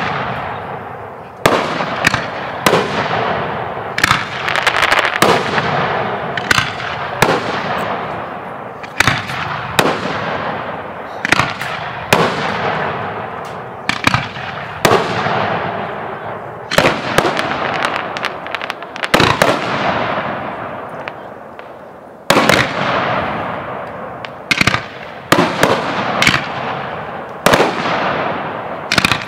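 Aerial firework shells bursting one after another, a sharp boom every second or two, each trailing off slowly before the next.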